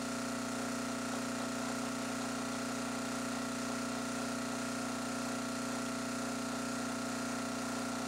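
Small electric blower motor humming steadily, a constant drone with a strong low tone and several higher tones above it.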